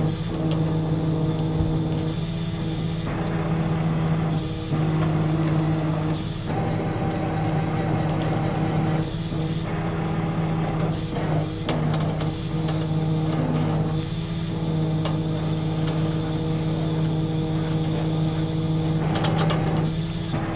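Tow truck engine running at a steady speed with a constant hum while its winch pulls a stuck SUV up out of a ditch under load, the hum briefly dipping a few times.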